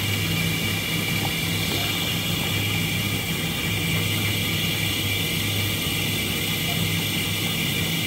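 Costa self-service coffee machine running as it dispenses milk into a large cup for a latte: a steady mechanical hum with a thin high whine over it.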